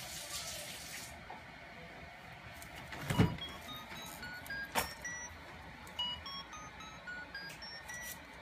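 Electronic tune from a baby jumper's light-up toy: short beeping notes climbing in steps, in two runs. A sharp knock about three seconds in, as the toy is struck, with a smaller knock a moment later.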